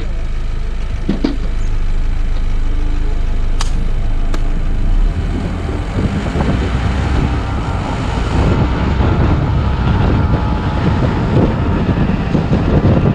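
Longboard wheels rolling on asphalt at speed, a steady rumble with wind buffeting the microphone, growing louder after about eight seconds. A few sharp clicks in the first five seconds.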